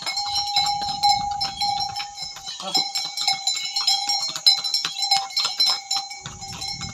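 Bells on the harness of passing riding ponies, jingling and clanking steadily with a sustained ringing tone and many quick clinks.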